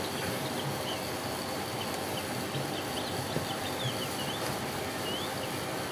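Steady background hiss with short, faint, high chirps of small birds scattered through it.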